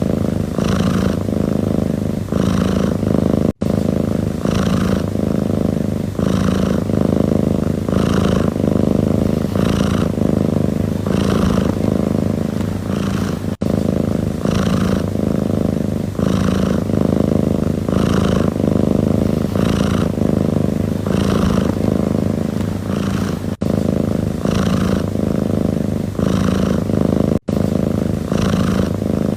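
A domestic cat purring steadily, the purr swelling with each breath about once a second, with a few split-second dropouts.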